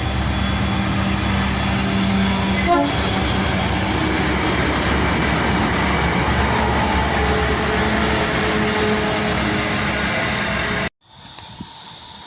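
A train running close by through the station: a loud, steady rumble of wheels and running gear, with a low steady hum over the first few seconds. The rumble cuts off abruptly about eleven seconds in, leaving a much quieter background.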